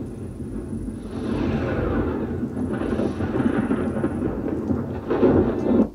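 Film soundtrack of a space scene played through a Samsung HW-H450 wireless soundbar and subwoofer and picked up in the room: a deep rumble that swells and fades, loudest near the end, then cuts off.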